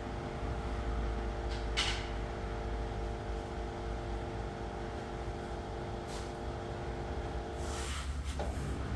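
Washing machine drain pump running with a steady hum while it pumps out the water, at the start of a spin cycle. There are brief hissing rushes about two seconds in and again near the end, when the pump hum cuts off.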